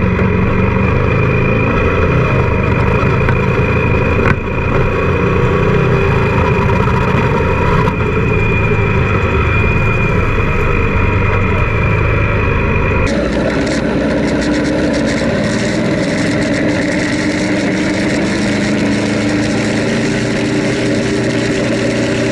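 Honda Africa Twin's parallel-twin engine running steadily as the motorcycle rides along, with wind noise over the camera microphone. The sound changes abruptly about 13 seconds in, at a switch to another camera.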